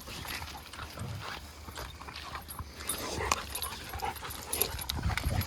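Dogs making short whines and yips, with scattered scuffing clicks of movement on the trail.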